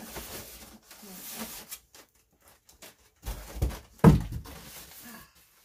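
A large cardboard box being slid out of its cardboard outer box, box scraping and rubbing against box. Then a few knocks and one loud thump about four seconds in as the box is set down.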